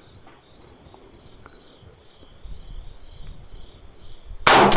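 Crickets trilling steadily, then about four and a half seconds in a single loud shot from an AR-style .223 rifle firing a MagTech 77-grain round, its echo dying away.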